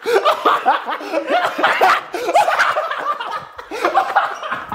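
People laughing together, with overlapping bursts of laughter and snickering.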